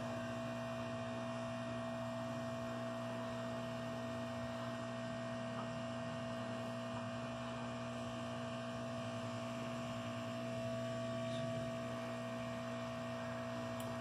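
Hot air rework station running, its blower giving a steady hum.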